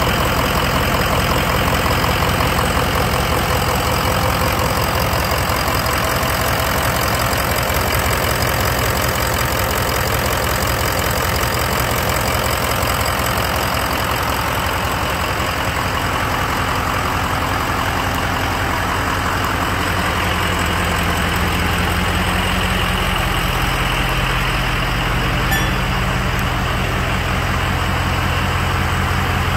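2004 Ford F-350's 6.0L Power Stroke V8 turbo diesel idling steadily. The low rumble grows stronger over the last several seconds.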